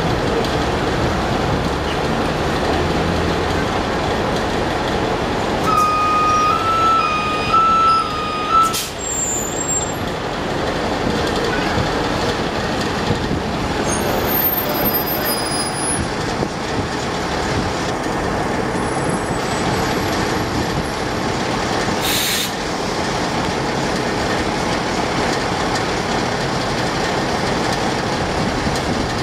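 NABI 40-SFW transit bus idling at a stop with a steady diesel engine sound. About six seconds in, an electronic warning tone alternates between two pitches for about three seconds and ends in a click; about twenty-two seconds in there is a short hiss of air.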